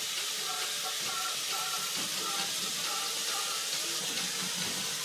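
Faint music playing: a simple melody of short, repeated notes over a steady hiss.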